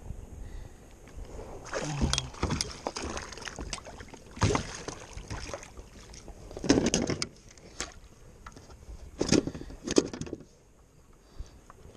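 Lake water splashing and sloshing beside a plastic kayak in about five short bursts while a landed fish is handled at the waterline.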